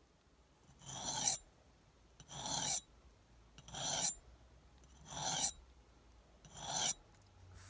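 Knife blade drawn across a spit-wetted sharpening stone in five even rasping strokes, each growing louder as it goes, about one every second and a half. The edge is being ground to take out a small nick, on the rougher side before finishing on the smooth side.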